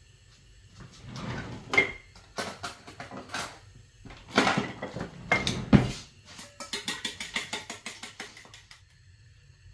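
Metal cutlery clattering in a kitchen drawer, then a fork beating an egg in a small stainless steel bowl: a quick, even run of clinks, about eight a second, for a couple of seconds.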